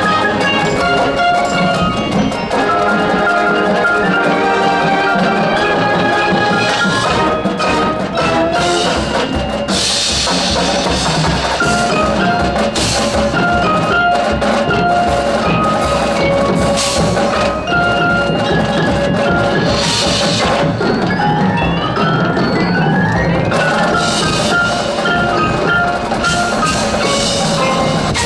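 Marching band playing its show music: a melody of held and moving notes over drums and mallet percussion, with bright crashes about ten seconds in, again about twenty seconds in, and near the end.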